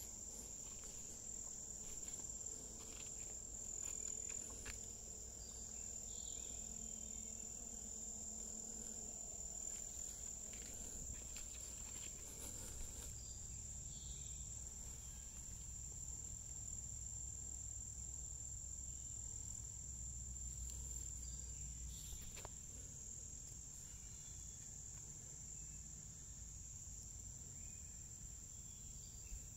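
Insects trilling in one steady, unbroken high-pitched tone, with a few faint clicks.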